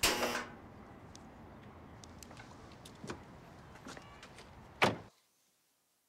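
A clattering knock at the start, then a low street background with a few faint clicks, and a single sharp thump near the end, likely a car door being shut; the sound then cuts off suddenly to silence.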